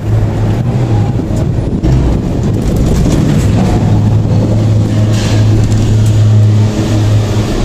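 Ngong Ping 360 gondola cabin moving along its cable, heard from inside the cabin: a steady low hum with rumble and rattle.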